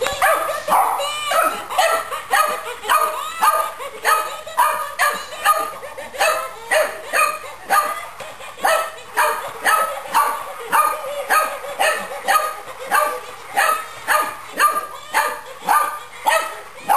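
Boxer puppy barking repeatedly in high, short yips, about two barks a second.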